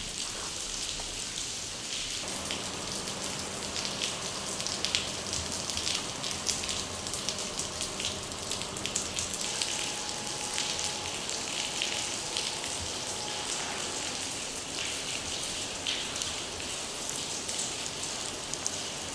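Steady rain pattering and dripping, a dense hiss with many small crackling drops, heard inside a large empty hall.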